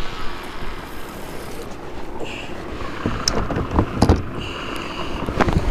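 Wind buffeting the microphone, with a cluster of sharp knocks and clicks a few seconds in as a fishing rod is handled and set into a rod holder on the kayak.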